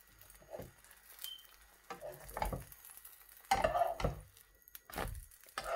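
Wooden spatula scraping and knocking against a frying pan in several irregular strokes as a tortilla is worked loose and flipped, over a light sizzle of egg frying in oil.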